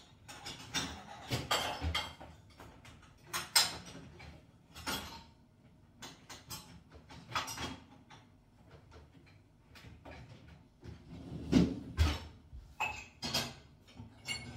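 Dishes and cutlery knocking and clinking as a dishwasher is loaded, with the dishwasher's rack sliding in and out; irregular sharp clatters, the loudest about three and a half seconds in and again around twelve seconds in.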